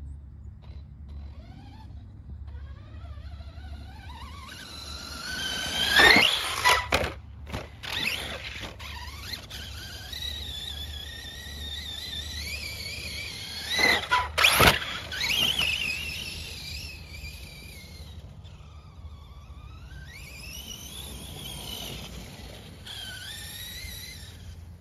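Brushless electric motors and drivetrains of large radio-controlled trucks whining, the pitch rising and falling as they accelerate and ease off across the grass. It is loudest twice, about six seconds in and again around fourteen seconds, as a truck passes close.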